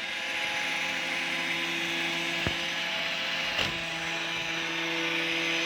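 Roomba robot vacuum running: a steady motor hum and brush whirr, with two short clicks in the middle.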